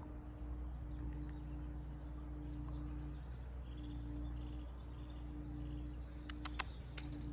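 Quiet outdoor ambience: a low steady hum with faint bird chirps scattered through it. A quick run of four or five sharp clicks comes about six seconds in.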